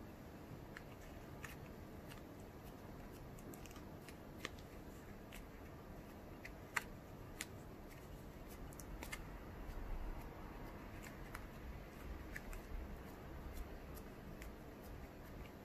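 Thin plastic candy-kit tray being handled while a thumb presses and flattens soft dough inside it: a low rustle of handling with scattered sharp ticks and clicks from the flexing plastic.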